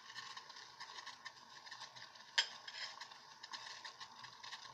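Faint, steady crackling and ticking of oil with crushed garlic heating in a small pot set in boiling water, as the oil begins to bubble. One sharp click about halfway through.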